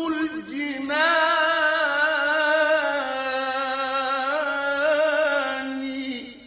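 A solo voice singing an Arabic devotional chant, drawing out one long ornamented note with vibrato that fades away near the end.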